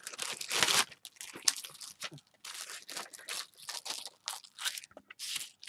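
Clear silicone stamp sheets on their plastic backing being handled and flexed, crinkling and crackling in irregular bursts, loudest in the first second.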